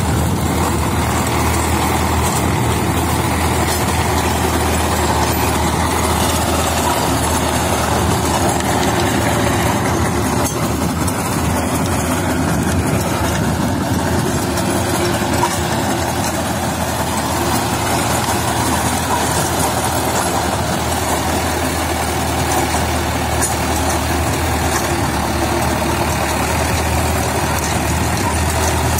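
Mahindra Arjun Novo 605 DI-I tractor's four-cylinder diesel engine running steadily under load, driving a 42-blade Shaktiman rotavator that tills the soil.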